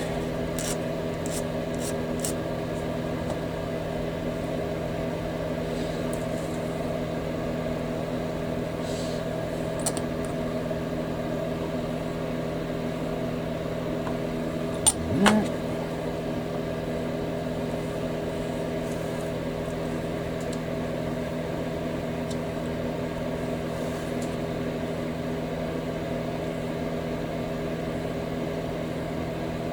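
A steady mechanical hum holding several tones at once, with a few faint light clicks and, about fifteen seconds in, a sharp click followed by a short knock.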